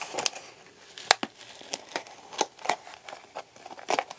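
Thin clear plastic cup (a 32-ounce deli-style cup) crinkling and clicking in the hands as it is worked around a fig sucker's stem: a series of irregular sharp crackles, the loudest a little over a second in and another near the end.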